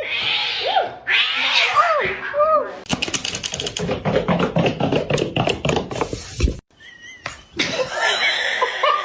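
A cat meowing, about three short rising-and-falling meows in the first three seconds. After a cut, a busier stretch follows with many sharp clicks and knocks over mixed noise.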